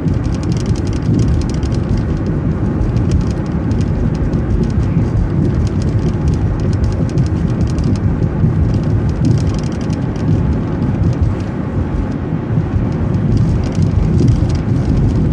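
City transit bus driving along a road: a steady low engine and road rumble with a fast, light rattling.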